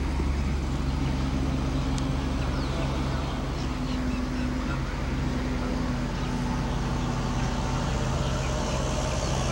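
Steady low mechanical hum under a constant background noise, with no clear hoofbeats or speech.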